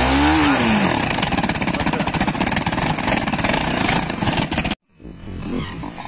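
Motorcycle engine running with a cut balloon fitted over the exhaust tailpipe, the balloon fluttering in the exhaust pulses as a rapid rattling buzz that sounds very strange. A short rev rises and falls at the start. The sound cuts out abruptly near the end and comes back quieter.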